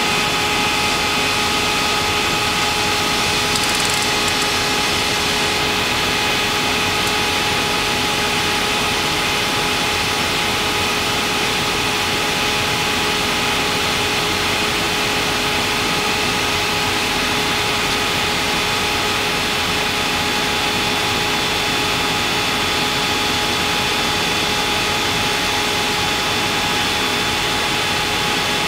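Steady rushing noise with several steady whining tones inside a Boeing 747-200 full-flight simulator's cockpit: the simulator's reproduced jet-engine and airflow sound on final approach.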